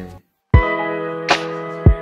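Background music: after a short gap of silence, a track starts about half a second in with held chords, deep beats and a cymbal-like swish.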